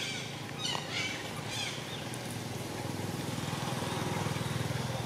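A motor engine running steadily with a low, fast-pulsing hum that grows louder from about two seconds in. High chirping calls sound twice in the first two seconds.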